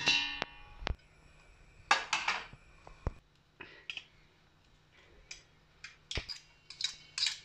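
Kitchenware clinking and clattering in several separate bursts, the first with a short metallic ring.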